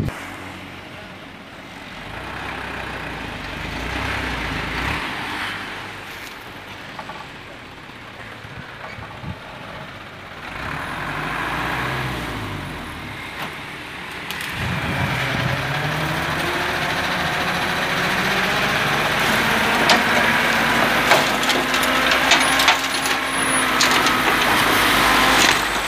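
Dump truck's diesel engine running, then revving up and holding from about halfway through as the hydraulic hoist raises the loaded bed. Near the end, fill soil and stones slide out of the tipping bed with crackling knocks.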